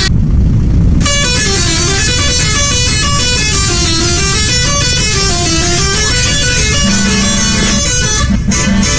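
Bejeu bus's multi-tone musical horn playing a tune of quick stepping notes that dip and climb again, over a steady low rumble, breaking into a few short toots near the end.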